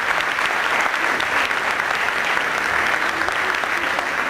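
Audience applauding steadily in a lecture hall after a talk ends.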